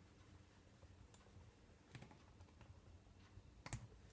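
Near silence with a few faint metallic clicks, the sharpest near the end: small pliers working a wrist-pin circlip out of a Stihl 028 AV chainsaw piston.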